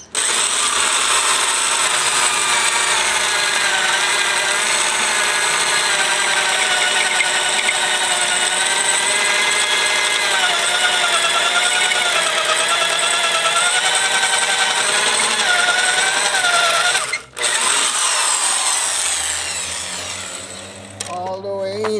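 Old corded electric drill boring a large twist bit into the end grain of a wooden beam. Its motor runs with a steady whine that wavers in pitch. It cuts out sharply for a moment about three-quarters of the way through, runs again, and then winds down near the end.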